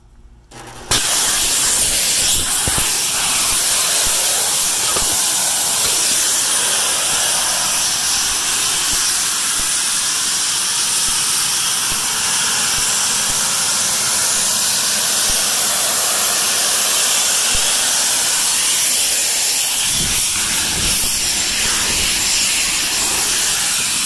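Heat pump outdoor unit loudly hissing as pressurized refrigerant gas escapes, starting suddenly about a second in and then holding steady: the repair has gone wrong and the system is venting its charge.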